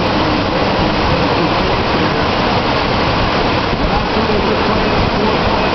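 Breaking surf and whitewater making a loud, steady rush along the shore.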